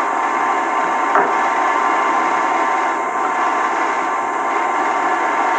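Steady hiss with a faint hum from a television soundtrack, heard through the set's speaker, with no speech.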